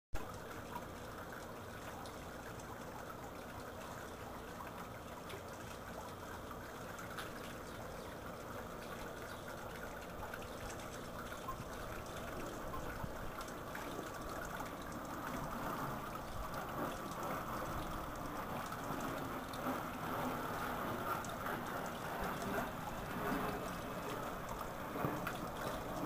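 Water trickling and splashing from a bamboo spout fountain into a small garden pond, a steady running-water sound that grows louder in the second half.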